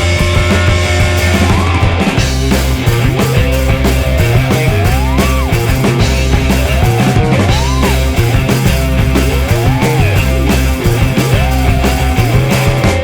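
Loud rock music: a melody that bends up and down in pitch every couple of seconds over a driving bass line and drums, the bass pattern changing about two seconds in.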